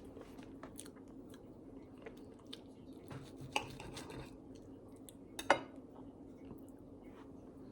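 Close-miked chewing and mouth sounds of a person eating, with many small clicks and two sharper clicks about three and a half and five and a half seconds in, over a low steady hum.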